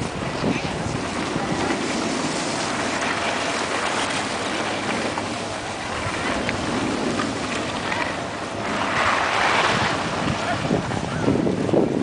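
Wind buffeting the camera microphone: a steady rushing hiss that swells louder for a second or two about nine seconds in.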